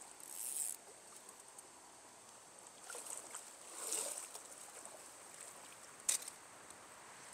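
Trout stream running faintly, with a few brief swishes about half a second in and again three to four seconds in, and a single sharp click about six seconds in.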